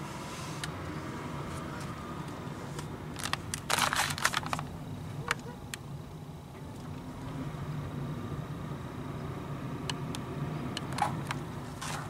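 Steady low hum of a car's engine and tyres heard from inside the cabin while driving slowly. A burst of sharp rattling clicks comes about three to four seconds in, and a few single clicks follow near the end.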